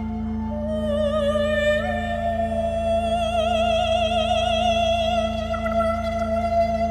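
A singer holding a high, sustained note over a steady low drone; the note slides up a step about two seconds in and then wavers with vibrato.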